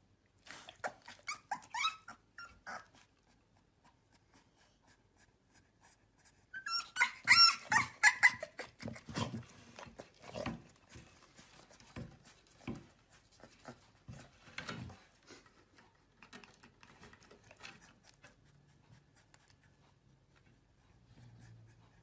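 Dog yipping and whining in high-pitched calls, in two bouts: a shorter one near the start and a louder one about seven seconds in. Quieter scattered noises follow.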